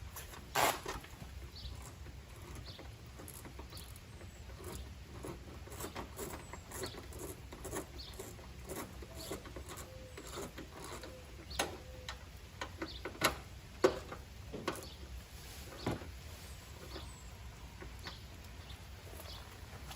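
Irregular light clicks, taps and knocks of a hand wrench and small fasteners as parts are fitted and tightened in a car's front wheel well, with a few sharper knocks in the middle.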